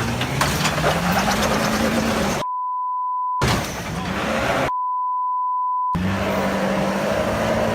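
Two censor bleeps, each a pure steady tone about a second long, that blank out the audio, most likely swearing. Around them an engine runs with a steady drone and rises a little in pitch early on.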